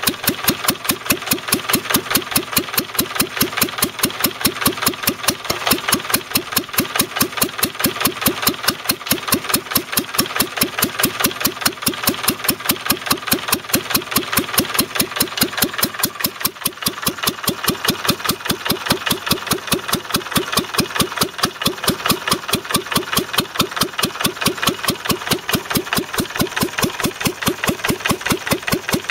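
1931 Conord F2 petrol stationary engine running steadily with an even beat, belt-driving a 1937 DC generator. It is turning at a lowered speed, set by a smaller pulley on the dynamo.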